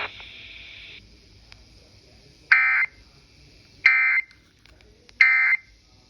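Three short, identical electronic data bursts, about a second and a half apart: the SAME end-of-message code that closes an Emergency Alert System weather warning on NOAA Weather Radio. A radio hiss cuts off about a second before them.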